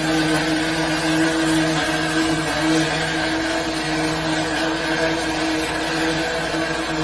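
High-pressure drain jetter running steadily while clearing a blocked drain: a constant engine-and-pump drone with a hissing wash of water-jet noise over it.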